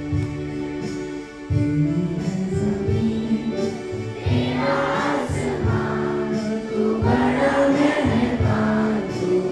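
A group singing a Hindi devotional prayer song in unison over an instrumental accompaniment with a steady beat. The opening seconds are instrumental, and the voices come in about four seconds in.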